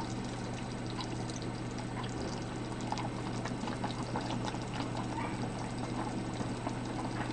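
Pork boiling in a stainless pot, bubbling steadily, with faint scattered clicks of tongs against the meat and pot. A steady low hum runs underneath.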